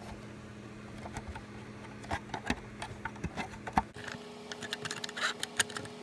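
Handling noise: scattered clicks and taps of fingers on a plastic fire alarm housing held close to the microphone, a few more of them in the second half, over a faint steady hum.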